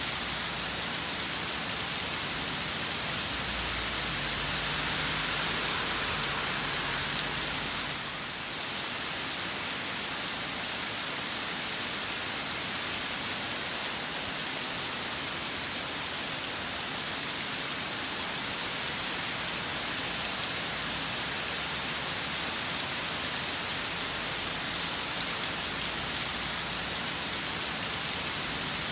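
Steady rain from a rainstorm falling on surfaces, an even hiss with no break.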